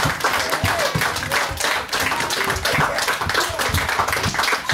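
Small audience applauding: many hands clapping in a dense, uneven patter.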